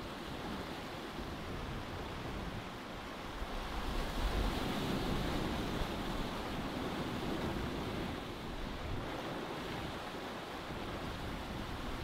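Sea water washing and rushing past a sailboat under way, with some wind. The wash swells louder about four seconds in for a couple of seconds, then settles.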